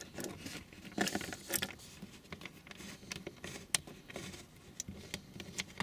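Faint, irregular small clicks and light scratching of a Torx screw being turned out by hand from dashboard trim, fingers working the screw in its plastic surround.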